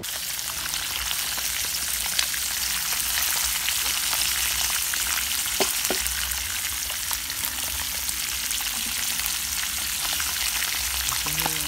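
Whole fish deep-frying in hot oil in a pan: a steady, dense sizzle with scattered crackles and a few sharper pops about five and a half to six seconds in.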